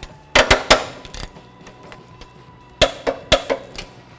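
Click-type torque wrench on a rear shock's 14 mm upper mounting bolt, giving two short bursts of sharp metallic clicks, the first about half a second in and the second near three seconds in, as it is pulled up to its 38 ft-lb setting.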